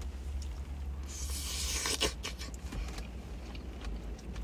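A fork scraping and clicking in a takeout food bowl: a rustling scrape about a second in, a sharp click just after, then a few lighter clicks. A steady low hum of the car cabin runs underneath.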